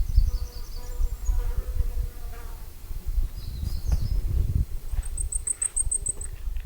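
A flying insect buzzing close to the microphone for about two seconds, over wind rumbling on the microphone. Near the end a bird gives a quick run of about ten very high, thin notes.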